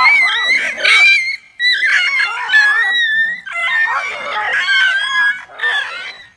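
Dogs fighting: loud, high, wavering yelps and cries in near-continuous bouts, with brief breaks about a second and a half in and again near the end.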